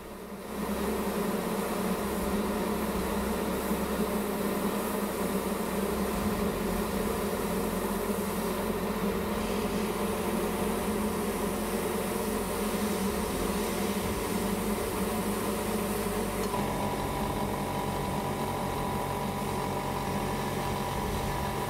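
Airbrush compressor running with a steady hum while air hisses through the airbrush as paint is sprayed. About three-quarters of the way in the hum changes pitch and a higher steady tone joins it.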